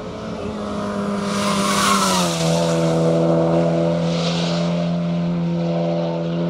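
A Volkswagen Golf race car's engine running at steady high revs as it drives past close by. The pitch drops about two seconds in as it goes by, with a hiss of rushing tyre noise at the moment of passing. It then carries on at the lower pitch as it pulls away up the road.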